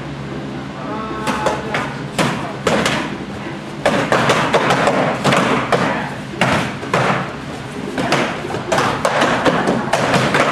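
Weapons sparring: a rapid, irregular run of hits and thuds as training sticks clash and strike the fighters' protective gear. It starts about a second in, with voices mixed in.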